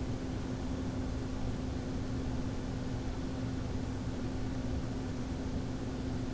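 Steady background hum and hiss with one constant low tone, with no events in it.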